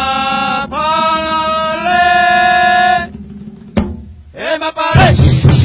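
Mapalé song: a solo voice holds long, slowly gliding sung notes. About four and a half seconds in, the drums and the rest of the band come in loudly with busy percussion.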